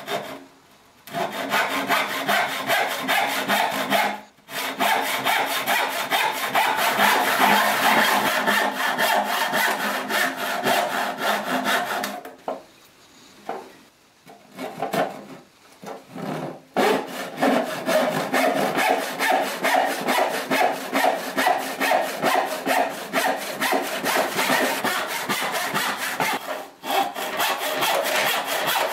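Handsaw cutting through a wooden board in repeated back-and-forth strokes. The sawing stops briefly about four seconds in, pauses for a few seconds in the middle apart from a few single strokes, and breaks off briefly again near the end.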